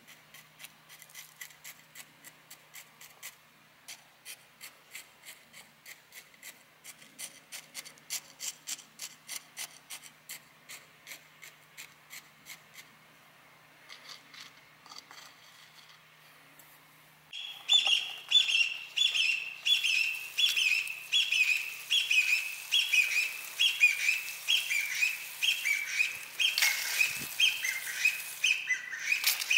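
A chopstick poking into gritty bonsai soil in a quick, even run of clicks, about three a second. After a short lull a bird starts calling loudly in a quickly repeated phrase, about two a second. Near the end comes the hiss of a watering-can rose spraying water.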